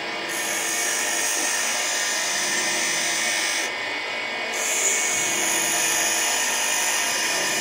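Angle grinder cutting metal: a continuous, steady grinding hiss with the motor's whine underneath.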